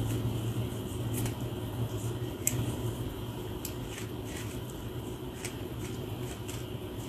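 A rat-tail comb being dragged through matted, knotted locs: irregular short scratchy rasps and snaps as the teeth catch and tear through the tangles, over a steady low hum.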